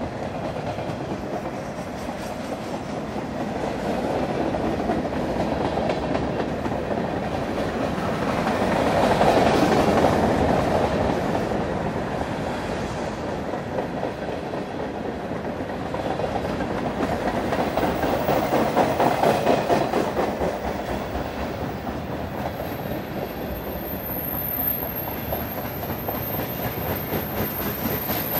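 Freight train cars rolling past at close range, their steel wheels rumbling and clicking over the rails. The sound swells twice, about a third of the way in and again past the middle, as heavier or noisier cars go by.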